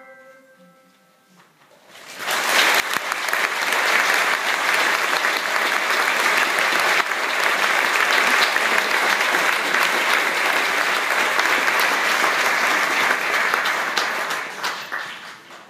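An audience applauding at the end of a school choir's song. The song's last held note dies away in the first second, the clapping starts about two seconds in, and it fades out near the end.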